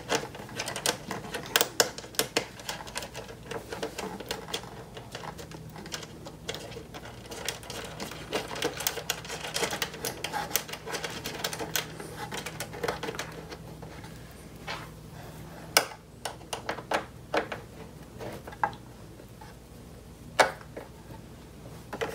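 Screws, washers and a metal monitor-mount bracket clicking and tapping against the back of a monitor as they are fitted by hand: a dense run of small sharp clicks that thins out about halfway through to a few separate, louder knocks.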